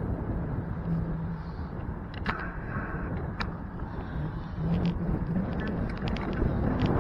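Steady rumble of wind and road noise on a bicycle-mounted camera riding through city traffic, with a faint engine hum from cars. A few sharp clicks or rattles come about two and three and a half seconds in, and the noise grows louder near the end.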